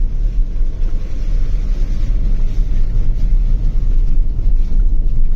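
A car driving along a rough dirt farm road, heard from inside the cabin: a steady, loud, low noise of the engine, tyres and wind on the phone's microphone.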